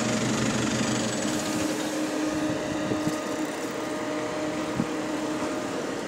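Alexander Dennis Enviro400 hybrid double-decker bus standing at a stop, running with a steady mechanical hum and fan noise carrying two steady whining tones, the lower one coming in about a second in.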